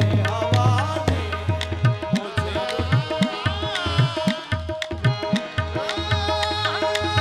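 Qawwali music: harmoniums holding steady notes under a hand drum's rhythm, with a male lead singer's voice gliding over them.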